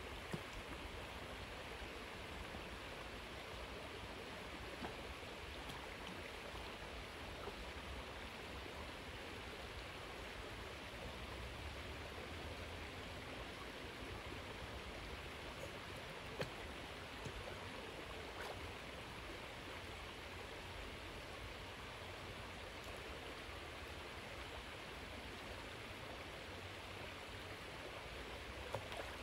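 Shallow creek water running steadily, with a few brief small splashes from a dog wading and swimming in it.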